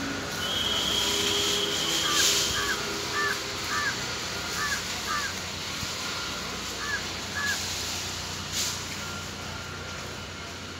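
A bird calling in short repeated notes, about eight calls mostly in pairs, over steady outdoor background noise. There are a couple of brief swishes in between.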